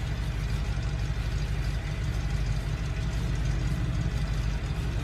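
BMW 328i inline-six engine being cranked over on the starter with its ignition coils disconnected, so it turns without firing, in a steady fast rhythm of compression pulses. This is a compression test, and the cylinder under test shows good compression.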